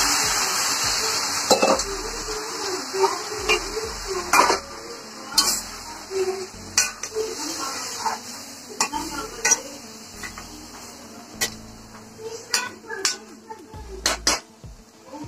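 A little water poured into a hot pan of marinated chicken frying in oil, sizzling hard at first and dying down over the first few seconds; then a spoon stirring the chicken, with repeated clinks and scrapes against the pan.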